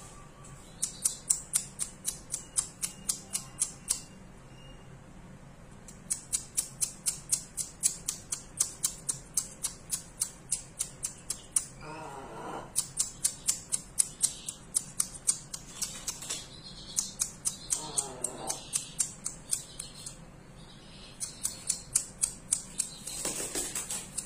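Three short chicken calls, each about a second long and falling in pitch, about halfway through, about three-quarters of the way through and near the end. Over them run trains of rapid, sharp, high clicking, about five clicks a second in runs of several seconds, louder than the calls.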